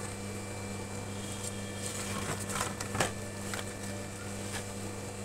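A dog eating rice from a plastic bowl: scattered chewing and bowl clicks, the loudest about three seconds in, over a steady low hum.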